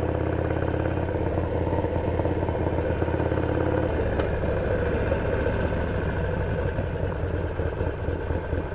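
Harley-Davidson Sportster V-twin motorcycle engine running steadily; its sound changes about four seconds in, turning rougher and choppier.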